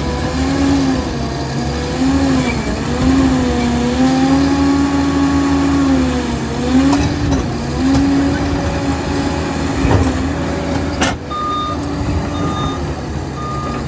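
Liebherr 746 crawler dozer's diesel engine running hard, its revs rising and dipping over and over. About eleven seconds in, after a sharp click, its reversing alarm starts beeping at a steady pace.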